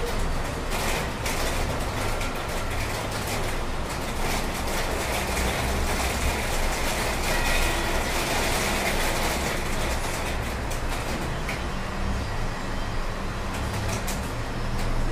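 Steady rushing noise of a rain shower with wind, and a low, uneven rumble from the wind on the microphone.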